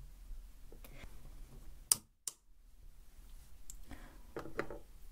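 Faint handling sounds, then a sharp click as the 3Dio Free Space binaural microphone's signal cuts out completely for a split second, and another click as it comes back.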